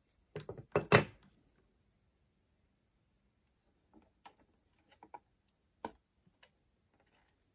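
Small metal parts and tools being handled on a welding machine: a quick cluster of metallic clinks and knocks about a second in, the last one the loudest, then a few light, scattered clicks.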